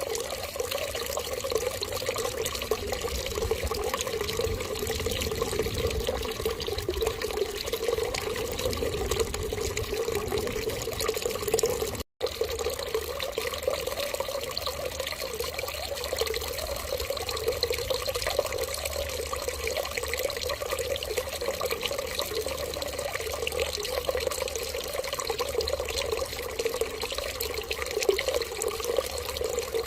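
Running water flowing steadily and evenly, with a split-second dropout about twelve seconds in.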